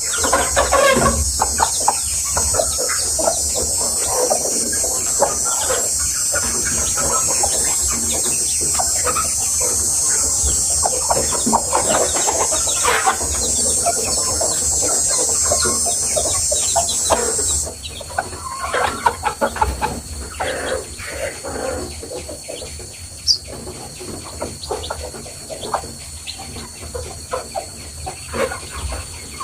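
Chickens clucking in many short, irregular calls over a steady high hiss. About two-thirds of the way through the hiss cuts off abruptly and everything gets quieter, while the clucking goes on.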